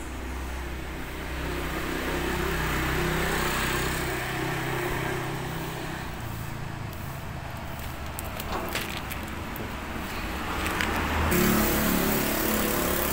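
Motor vehicle engine hum from road traffic, swelling a couple of seconds in and again near the end as vehicles pass.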